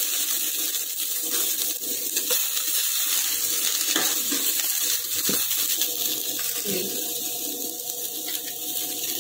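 Ridge gourd peel, shallots and lentils sizzling in a pan while a perforated metal ladle stirs them, knocking and scraping against the pan now and then.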